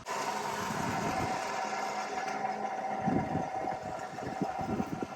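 Farm vehicle engine idling with a steady hum, with some irregular low rustling and knocking in the second half.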